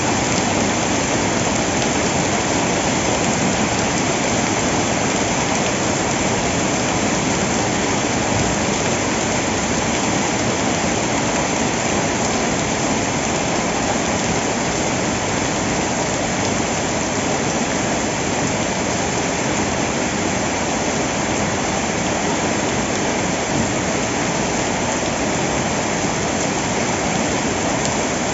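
Heavy rain falling steadily, a dense even hiss without breaks.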